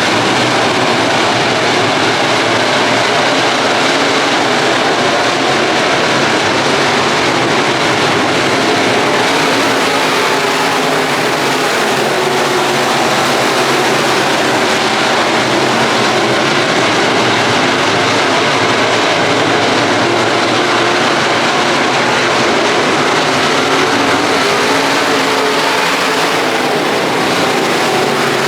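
Dirt-track race car engines running steadily and loudly at speed, a continuous wash of engine noise without a break.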